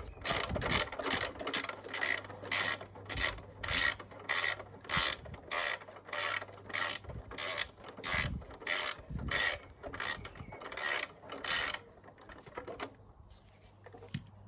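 Ratchet wrench clicking in quick back-and-forth strokes, about two or three a second, undoing a 10 mm nut; the strokes stop about twelve seconds in.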